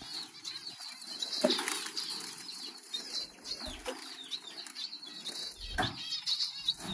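Aviary birds fluttering their wings, with faint chirps and a few sharp knocks.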